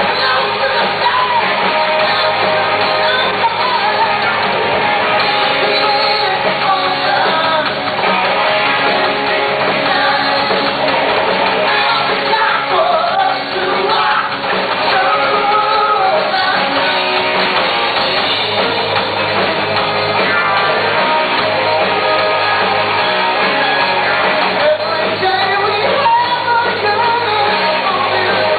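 A rock band playing a song live with a singer, electric guitar and keyboards, heard through the PA in a large hall.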